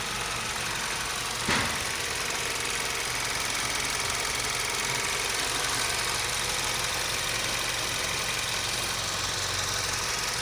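Freshly rebuilt Ford 2.3 EcoBoost turbocharged four-cylinder engine idling steadily, running cleanly with no knock after its overhaul. A single sharp click comes about a second and a half in.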